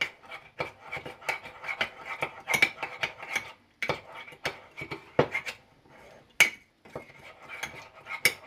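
Metal spoon stirring a thick peanut butter glaze in a ceramic mug: irregular clinks and scrapes against the mug's sides and bottom, with a brief lull partway through.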